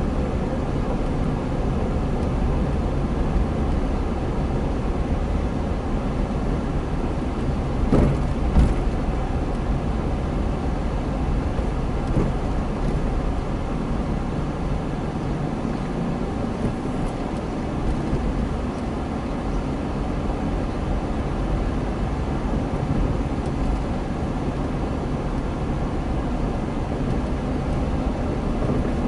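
Steady low running noise of a car driving slowly, heard from inside the cabin. Two short knocks come close together about eight seconds in.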